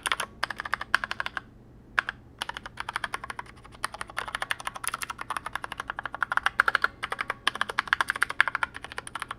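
Fast typing on a custom mechanical keyboard with 64 different switches, about half of them frankenswitches, mounted on a steel plate in a 3D-printed PLA case and topped with ABS SA-profile keycaps. The result is a rapid run of key clacks with a short pause near the two-second mark.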